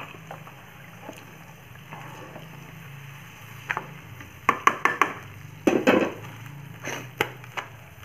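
Nylon spatula stirring water into fried rendang spice paste in a non-stick wok: the liquid swishes, and the spatula knocks and scrapes against the pan several times in the second half. A steady low hum runs underneath.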